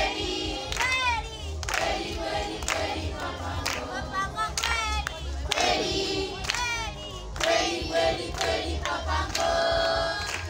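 A group of schoolchildren singing together in unison as they march in procession, over a steady beat of sharp strikes.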